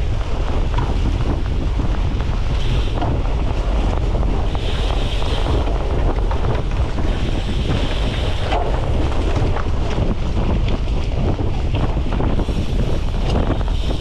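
Wind buffeting the microphone of a camera mounted on a racing cyclocross bike, with a steady low rumble and frequent short knocks and rattles from the bike over rough ground.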